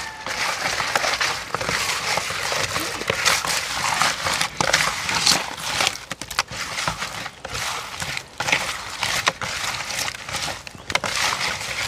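Hands tossing and turning whole small sprats in a plastic bowl to rub in black pepper and salt before frying: a continuous wet rustling with dense, irregular clicks of the fish against each other and the bowl.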